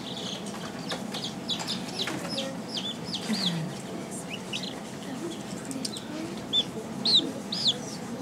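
Baby chicks peeping: a run of short, high-pitched peeps, a few a second, loudest near the end.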